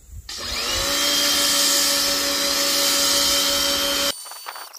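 Harbor Freight Portland 1750 psi electric pressure washer starting up with a quick rising whine, then running steady under the hiss of the foam cannon spraying. It cuts off suddenly a little after four seconds in.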